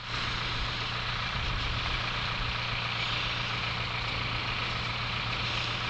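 A vehicle engine idling: an even low hum under a constant hiss, with no change in speed.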